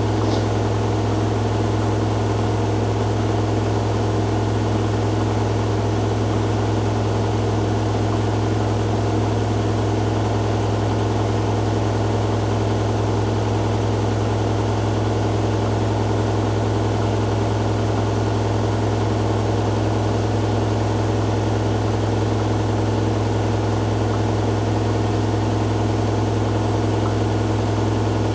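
Hoover Dynamic Next DXA610IW3 washing machine in its spin cycle, the drum spinning steadily with a strong, even low hum and fainter steady whining tones above it.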